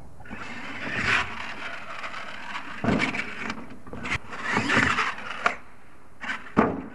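Radio-controlled scale monster truck running hard on a dirt course, its motor and tyres hissing as it spins through the dirt, with several sharp thumps as it lands jumps and hits the ramp, the loudest near the end.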